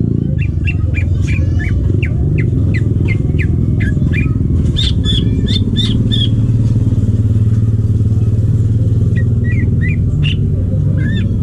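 Green leafbird (cucak ijo) singing a quick run of short, sharp chirping notes, loudest about halfway, with a few more near the end. A steady low mechanical rumble lies under the song and is the loudest sound.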